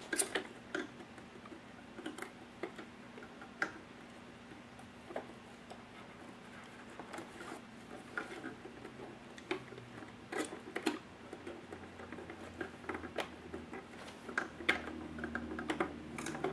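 Scattered light clicks and taps of a Tamiya 1/14 Volvo FH16's hard plastic cab body being worked down onto the truck's chassis by hand, over a faint steady hum.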